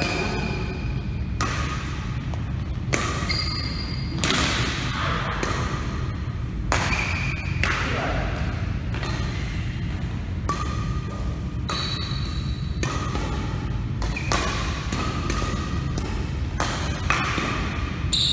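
Badminton racquets striking a shuttlecock back and forth in a rally, a sharp smack about every second and a half. Short squeaks come between the hits.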